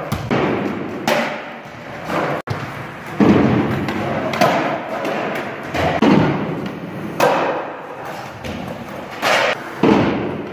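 Skateboard wheels rolling on a hard gym floor and wooden ramps, with repeated sharp clacks and thuds of the board popping, hitting the ramps and landing, echoing in a large hall.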